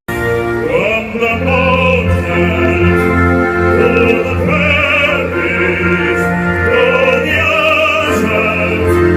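Operatic singing with orchestral accompaniment: a trained voice holds long notes with a wide vibrato over sustained low orchestral chords. It starts abruptly.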